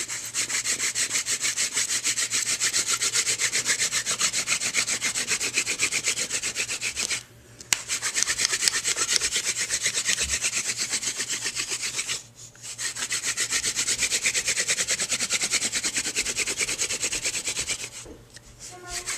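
Wooden hand-drill spindle spun fast between the palms, grinding in the notch of a fireboard to make a friction-fire ember. A rapid, even rubbing that breaks off briefly three times, about 7 and 12 seconds in and near the end.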